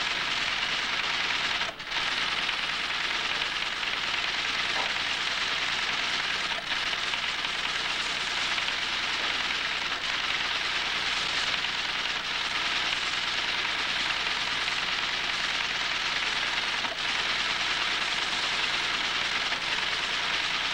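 Teleprinter computer terminal printing a steady, rapid clatter of type strikes as it types out a time-sharing computer's replies to a login, with a brief break about two seconds in.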